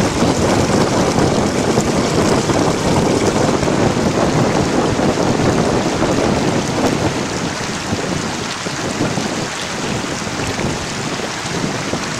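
Mountain river rushing: a steady, dense wash of flowing water that eases slightly in the second half.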